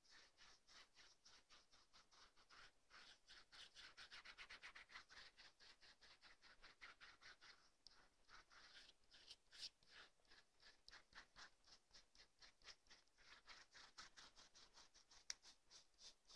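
Fingertips rubbing and smoothing wet plaster cloth, a faint, rapid scratchy rubbing of several strokes a second, with one sharper click near the end.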